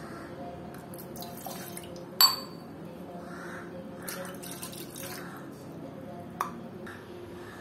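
Water being poured into an aluminium saucepan. A sharp metallic clink with a short ring comes about two seconds in, and a smaller click near the end.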